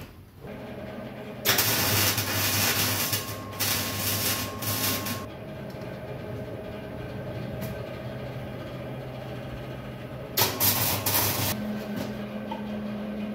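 Suzuki Samurai's four-cylinder engine running with a steady hum, broken by two louder, noisier stretches: one of about four seconds starting a second and a half in, and a shorter one of about a second near the end. Right after the second stretch the engine note settles slightly higher.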